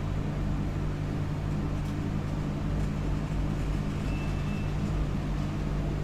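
A steady low mechanical hum with several even tones, unchanging throughout; a brief faint high tone sounds about four seconds in.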